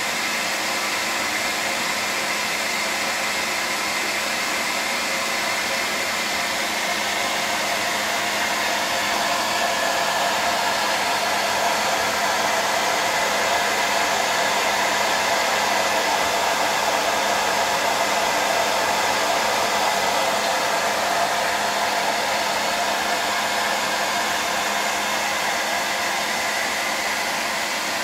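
Steady whir and rush of air from an electric blower driving the spinning propeller of a plastic model plane, a little louder through the middle stretch.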